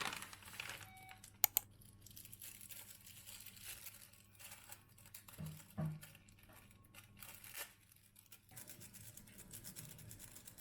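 Faint rustling and crinkling with scattered light clicks, and two sharp clicks about one and a half seconds in.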